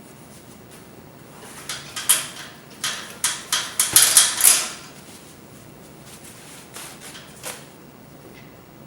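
Rattling and clinking of painting gear at an artist's palette: a quick run of sharp clicks and rattles lasting about three seconds, starting about a second and a half in, with a couple of fainter clicks later.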